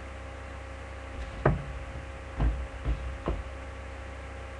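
A few dull knocks from an iPad being handled near the microphone: one about a second and a half in, then three more close together over the next two seconds. A steady low electrical hum sits under them.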